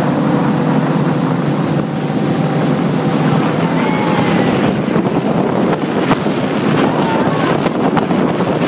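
Speedboat running at speed through turbulent water: a steady engine drone under rushing water and spray, with wind buffeting the microphone.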